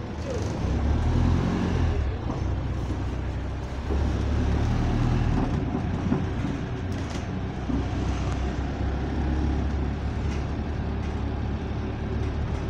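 Single-deck bus engine running, heard from inside the passenger saloon as a steady low drone with the interior rattling; the exhaust is slightly blown.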